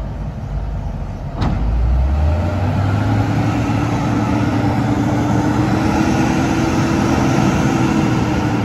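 Heavy diesel engine of a Hino dump truck revving hard under load as it pulls through deep mud, pushed from behind by an excavator's bucket. A single sharp knock comes about a second and a half in. Then the engine note jumps up and holds, rising slightly and easing off near the end.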